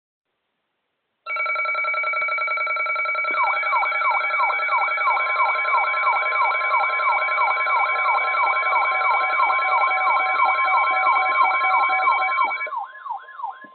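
Emergency alert attention signal: a loud steady chord of electronic tones starts about a second in, and a siren-like sweep rising and falling about three times a second joins it about two seconds later. Both stop near the end, leaving a brief fading tail.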